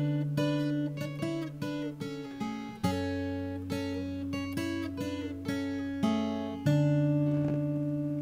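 Background music of acoustic guitar, notes picked one after another, ending on a chord about seven seconds in that rings out and fades.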